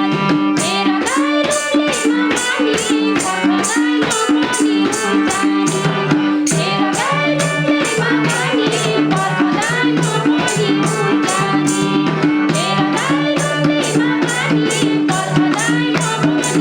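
Instrumental break of a Nepali dohori folk song: a melody bending in pitch over a repeating bass line, with fast, even percussion ticking several times a second.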